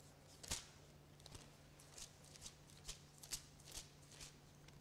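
Faint paper rustling: short, scattered crackles, about eight of them, as pages are leafed through to find a passage to read. A low steady hum runs underneath.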